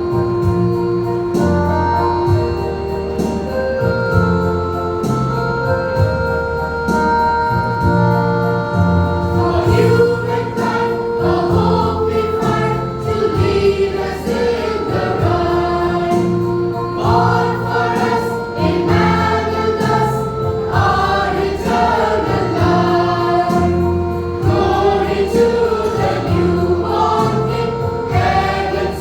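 Junior church choir singing a gospel song over instrumental accompaniment with a steady bass line. About a third of the way in, the voices come in fully after a passage of held instrumental chords.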